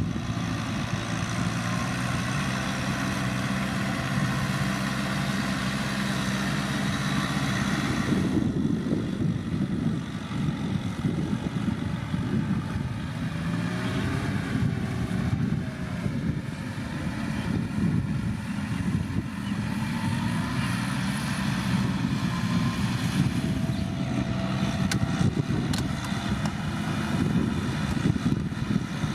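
Kubota M6040SU tractor's four-cylinder diesel engine running steadily while ploughing, its upper tone thinning out about eight seconds in.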